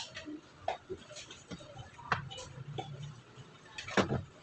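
Small hard parts handled and set down on a work surface: scattered clicks and taps, the loudest about four seconds in.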